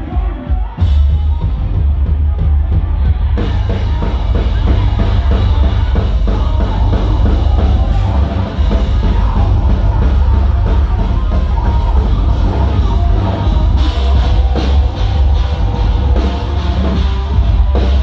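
Live metalcore band playing loud: distorted electric guitars and bass over a drum kit with a heavy, pounding bass drum. The sound grows fuller and brighter about three seconds in.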